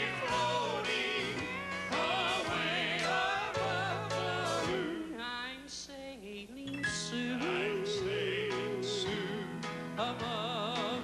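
Southern gospel male quartet singing in close harmony, backed by a live band. The held notes carry a wide vibrato.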